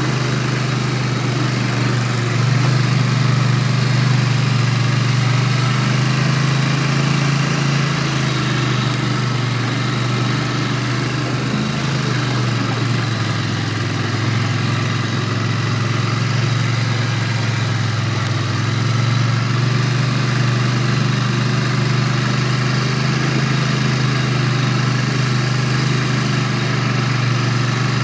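ATV engine running steadily on a trail ride; its note sinks lower about halfway through and rises again a few seconds later.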